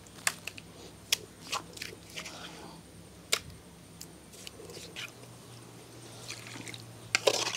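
Scattered soft wet scrapes and taps as thick ground spice paste is scraped off a stone grinder by hand and dropped into a steel bowl.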